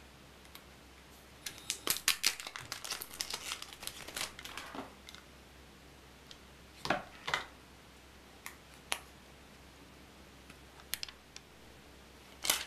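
Hands handling a plastic power adapter and its coiled cable, then a round plastic media-player puck: light clicks, taps and rustles. They are busiest from about two to five seconds in, with a few scattered clicks after that.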